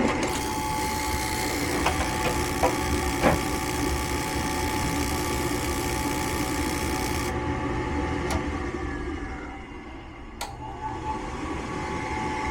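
Gas furnace running its start-up cycle: a steady motor hum with a constant whine, probably the draft inducer, with a few sharp clicks in the first few seconds and a brief drop in level a little before the end. The furnace has no gas supply, so it cannot light and stay on.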